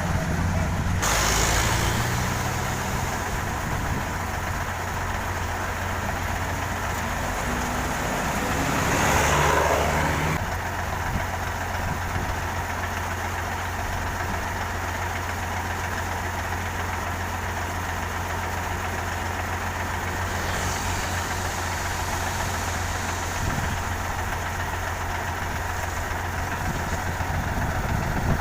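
Heavy road-construction machinery engine running steadily, with two louder swells of engine noise: one about a second in and a bigger one around nine to ten seconds.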